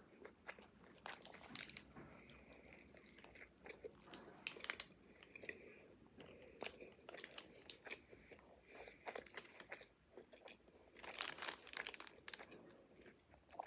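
Close-up chewing and crunching of food: faint, scattered crisp clicks, with a louder flurry about a second long near the end.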